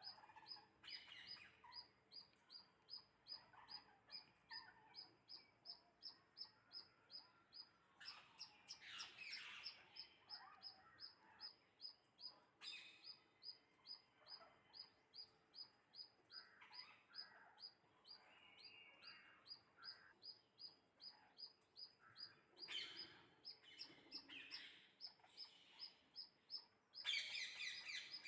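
Birds chirping faintly: one high, short note repeating evenly about three times a second, with varied, irregular calls over it, which grow louder about nine seconds in and again near the end.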